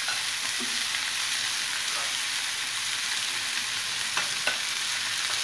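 Marinated chicken leg pieces frying in about a tablespoon of oil in a nonstick frying pan: a steady sizzling hiss, with a few light knocks about two and four seconds in.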